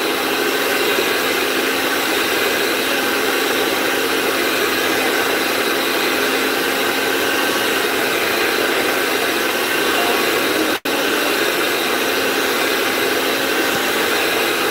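Handheld electric mixer running steadily, its beaters whisking cake batter in a plastic bowl: an even motor whir with a steady hum. The sound cuts out for an instant about eleven seconds in.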